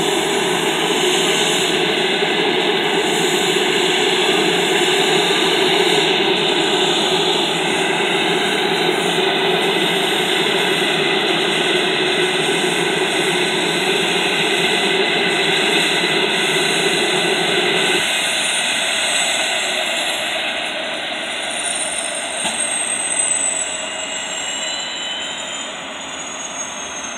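Sikorsky S-92A helicopter running on the ground, its twin turboshaft engines and turning rotors making a loud, steady turbine noise. About two-thirds of the way through the lower part of the noise drops away and a high whine begins to slowly fall in pitch as the sound eases.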